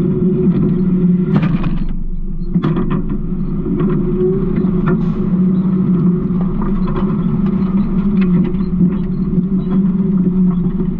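Garbage truck engine running steadily, with scattered rattles and knocks from the truck body.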